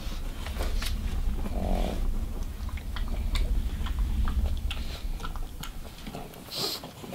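Pugs snuffling at close range as they sniff each other, with many small clicks, such as claws on the hard floor, and a short hissy burst near the end. A low rumble runs under the first few seconds.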